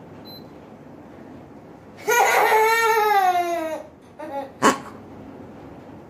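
A child's loud, drawn-out cry, falling in pitch, starting about two seconds in and lasting almost two seconds, followed by a couple of short vocal sounds and a sharp click.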